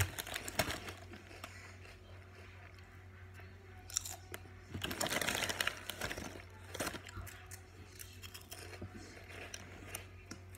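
Ready salted crisps being crunched and chewed close to the mouth, in a series of short crackles, with a denser stretch of crackling about five seconds in. A low steady hum runs underneath.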